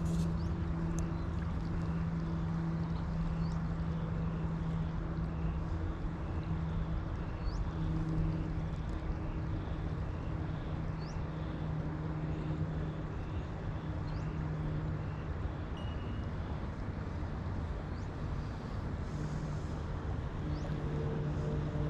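A steady low engine hum holding one pitch over a noisy background, with faint high chirps now and then.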